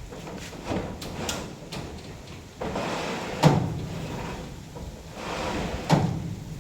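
Sliding panel running along its track with a rolling scrape, knocking against its stop twice: once sharply about halfway through and again near the end.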